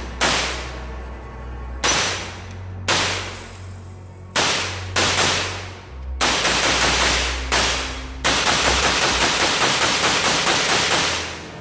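Diamondback DB15 AR-15 pistol in 5.56 firing semi-automatic shots, each with a short echo. The shots come about a second apart at first, then closer together, then in a fast string of roughly seven shots a second for nearly three seconds, starting about eight seconds in.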